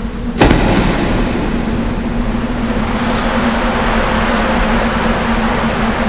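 Dramatic soundtrack sound effect: a sudden hit about half a second in, then a steady, loud rumbling rush with a high ringing tone held over it.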